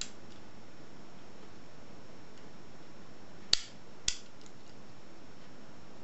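Small metallic clicks of a pick wire and tension wrench working the levers inside an old Squire three-lever padlock, with two sharp clicks about half a second apart a little past halfway and a few faint ticks, over a steady hiss.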